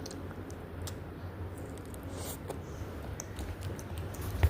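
Faint small clicks and wet squishing of someone chewing strawberries close to the microphone, over a low steady hum, with one sharp knock near the end.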